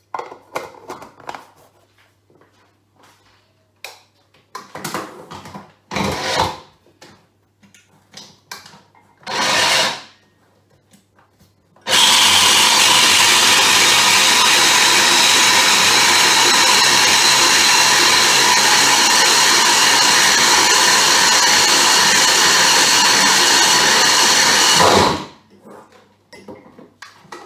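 Electric mixer grinder blending coriander, garlic, ginger, green chillies, salt and yogurt into chutney: two short pulses, then a steady run of about thirteen seconds that cuts off sharply. Light clatter of the jar being handled comes before.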